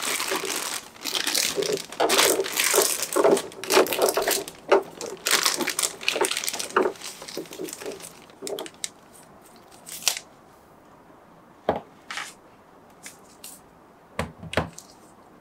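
Clear plastic packaging crinkling and rustling as it is handled and pulled away, dense for about the first nine seconds. After that come a few separate crackles and soft knocks.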